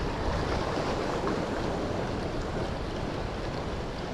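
Ocean surf breaking and washing over rocks, a steady rush of noise, with wind buffeting the microphone.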